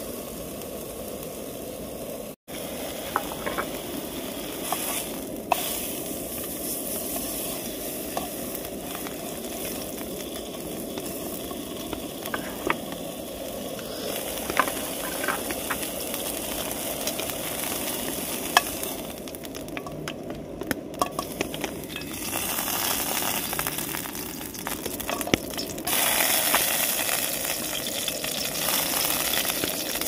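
Meat frying in hot oil in a pan, a steady sizzle with scattered pops and spits. The sound cuts out for an instant about two seconds in.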